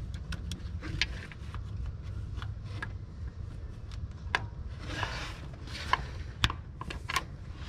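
Scattered sharp clicks, taps and scrapes of long-nose pliers and gloved hands working on engine-bay parts, the loudest clicks near the end, over a steady low hum.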